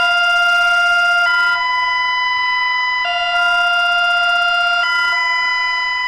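Emergency alert alarm tone: a steady, buzzy electronic two-tone signal that alternates between a lower and a higher pitch about every second and a half to two seconds.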